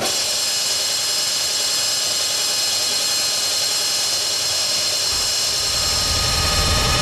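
Electronic noise from a keytar-style synthesizer played live: a dense, steady hiss laced with high held tones, coming in abruptly, with a low rumble joining about five seconds in.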